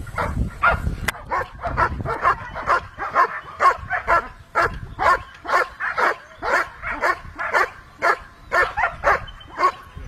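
Long-coated German Shepherd Dog barking steadily and rhythmically, about two to three barks a second, while it sits guarding a helper in a protection sleeve: the bark-and-hold of protection work.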